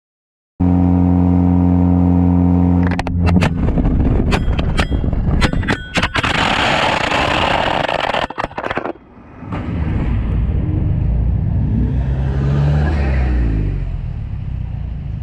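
Ford Focus ST's turbocharged four-cylinder through a catless downpipe and muffler-deleted exhaust, tuned for crackles: a steady loud engine note, then revving with a run of sharp pops and crackles. After a brief drop about nine seconds in, a lower rumble that rises and falls in pitch.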